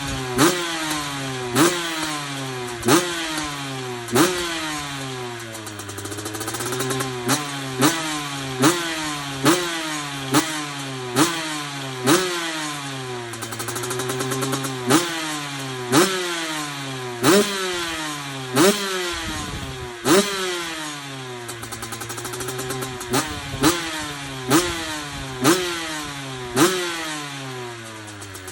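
Dirt bike engine being revved in repeated quick throttle blips, the pitch snapping up and falling back about once a second, with brief spells of idle between runs of blips.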